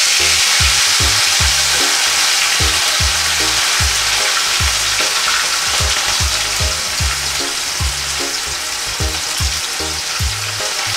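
A seasoned barracuda steak shallow-frying in hot oil in a non-stick frying pan: a loud, steady sizzle that eases slightly toward the end. Background music with a steady beat plays underneath.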